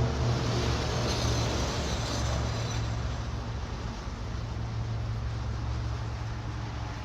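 A steady low mechanical rumble with a droning hum under a rushing hiss, easing off a little toward the end.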